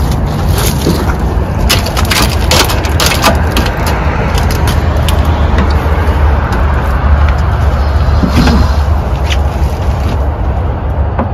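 Clicks and knocks of a man climbing into a tractor cab and settling into the seat, clustered in the first few seconds and sparser after, over a steady low rumble.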